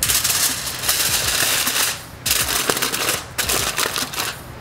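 Aluminium foil crinkling and crackling as it is folded by hand into a packet around food, in two spells with a short pause about two seconds in.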